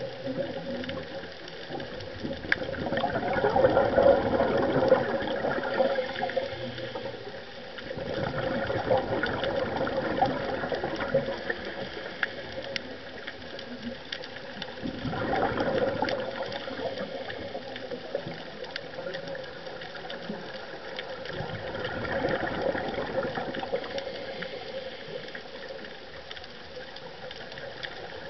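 Underwater sound of a scuba diver breathing through a regulator: the exhaled bubbles swell up and fade about every six seconds, over a steady hum.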